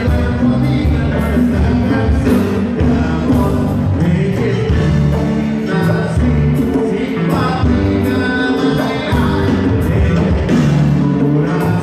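Live amplified band music with a singer: guitars, keyboards and drums playing a steady dance beat, loud and continuous.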